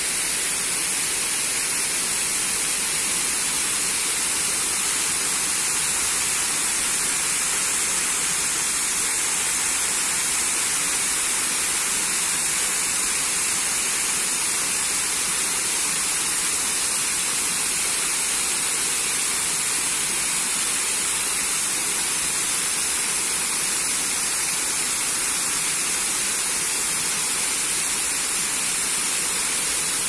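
Artificial waterfall cascading down a stepped stone wall into a pond: a steady, unbroken rush of falling and splashing water.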